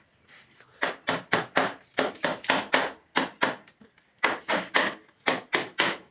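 Rapid hammering on wood, about four blows a second, in two runs with a short pause between them.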